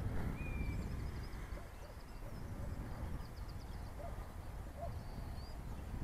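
Strong gusty wind buffeting the microphone, a low noise that rises and falls, with faint high bird chirps above it.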